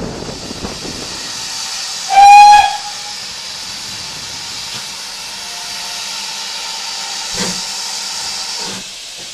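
GWR small prairie tank locomotive 5542 giving one short blast on its steam whistle about two seconds in, over a steady hiss of escaping steam. A single knock comes about seven seconds later.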